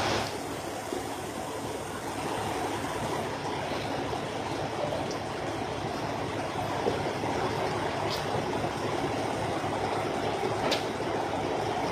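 Steady rushing noise with a low hum underneath, the ambient sound of a truck-stop fuel island, with a few faint ticks.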